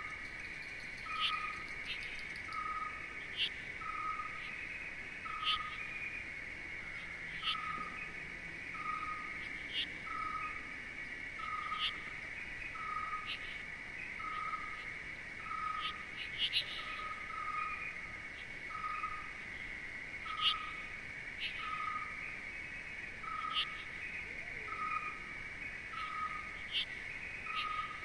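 Nature ambience of insects and birds: a steady high insect drone, a short call repeated evenly about once a second, and brief sharp chirps scattered over it.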